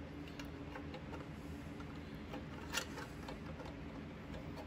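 Small, faint clicks and taps of a grille piece being handled and pressed onto a steel Tonka toy pickup cab, with one sharper click a little past the middle.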